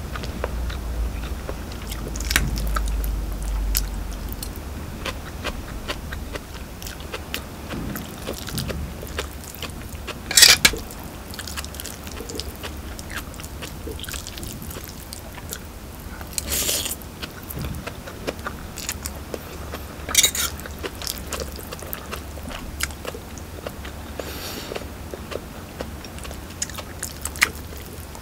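Close-miked chewing and slurping of spicy instant noodles, with many small clicks and taps. Three short, louder slurps come about ten, seventeen and twenty seconds in.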